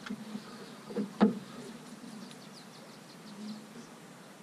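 A sharp knock about a second in, a quieter one just before it, over a quiet steady outdoor background with a low hum.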